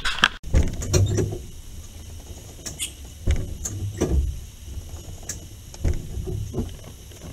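Scattered muffled thuds and clunks with a few sharp clicks: someone working at a pickup truck with a flat tire, heard from inside its cab.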